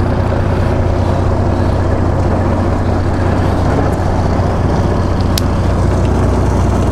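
Fishing boat's engine running with a steady low drone, plus one sharp click about five seconds in.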